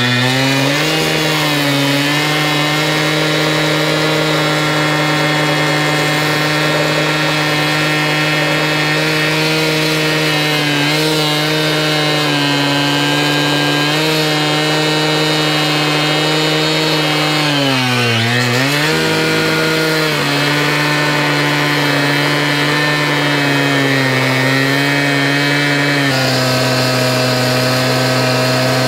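Hilti gas-powered two-stroke cut-off saw running at high speed as its abrasive disc grinds through a steel railroad rail. Its steady pitch dips and picks back up briefly about a second in and again about two-thirds of the way through.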